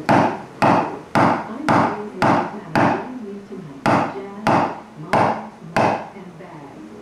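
Mallet striking a carving gouge, driving it into a wooden relief panel: ten sharp knocks, about two a second, with a brief pause about three seconds in.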